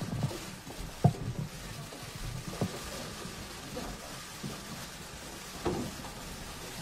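Many camera shutters from a crowd of press photographers firing at once, a steady patter of rapid clicks with a few louder clicks now and then.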